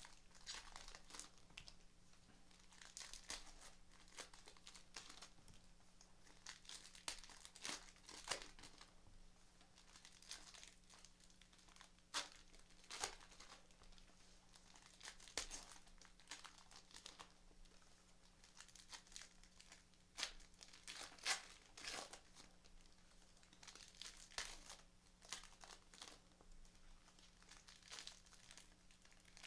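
Baseball-card pack wrappers being torn open and crinkled by hand: faint, irregular rustling and tearing in short scratchy bursts.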